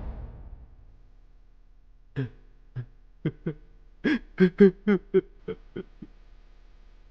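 A person's voice making about ten short, broken non-word sounds over some four seconds, closest together in the middle.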